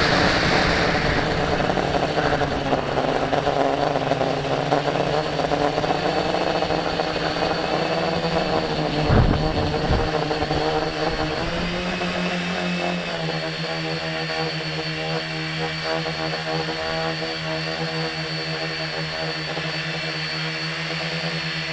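Tricopter motors and propellers running with a steady, tonal whine. There is a brief thump about nine seconds in, and from about thirteen seconds the sound settles into a steadier, less noisy hum.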